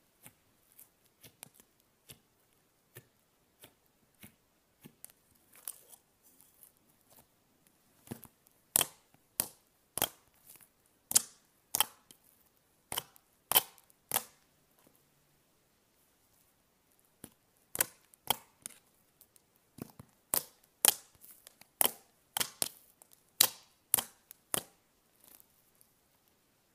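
Thick cookie dough slime being poked, pressed and stretched by fingers, giving sharp sticky clicks and pops. They are faint and sparse at first, then louder and about two a second, with a short pause in the middle.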